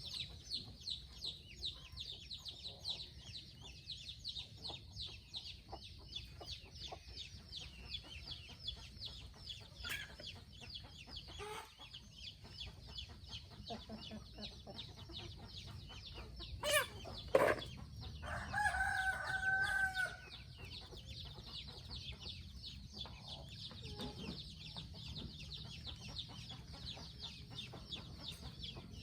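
Free-range chickens clucking, over a rapid, high chirping that repeats throughout. About two-thirds of the way in there are two sharp loud calls, and then a rooster crows for about two seconds.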